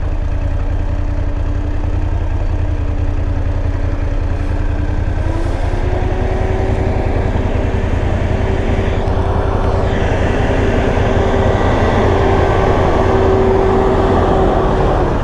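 BMW F850 GS motorcycle's parallel-twin engine running steadily under heavy low wind and road rumble. The engine note steps up about five seconds in and holds there.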